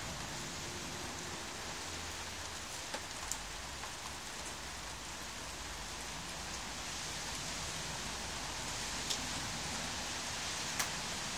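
Rain falling steadily on a concrete path, an even hiss, with a few sharp ticks scattered through it, the loudest near the end.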